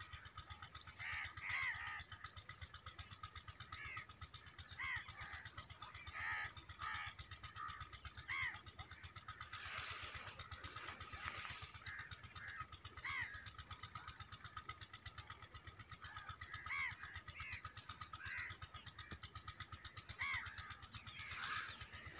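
Crows cawing over and over, a call every second or two, above a steady low mechanical throb. A brief rush of noise comes about ten seconds in.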